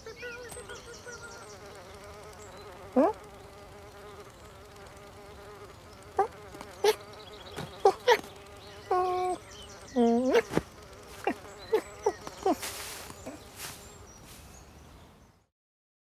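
Cartoon foley: a steady, insect-like buzz with a dozen short rising chirps and squeaky, meow-like calls over it, all stopping shortly before the end.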